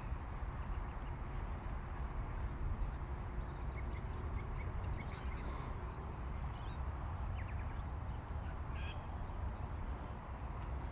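Open-field ambience: steady wind rumble on the microphone, with a few faint short bird calls about halfway through and again near the end.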